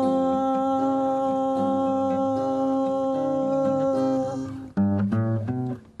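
A man's voice holds the long final sung note of a song over acoustic guitar accompaniment. About four and a half seconds in, the voice stops and a few plucked guitar notes follow, dying away just before the end.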